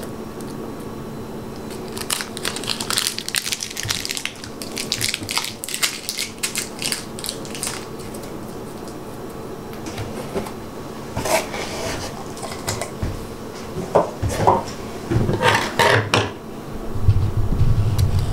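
Packaging being handled: crinkling and crackling in two runs of quick clicks, with a few knocks and a low rumbling bump near the end, over a steady low hum.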